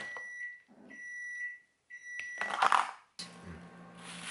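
Plastic crinkling and rustling as a takeout container lid and cling film are handled, loudest about two and a half seconds in. A steady high electronic-sounding beep tone sounds in three short stretches through the first half.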